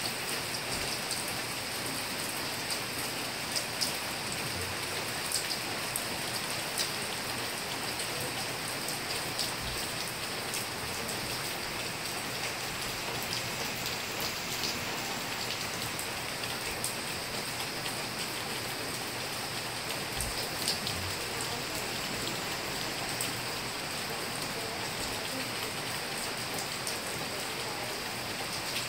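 Steady rain falling, an even hiss with many small sharp drop ticks scattered through it.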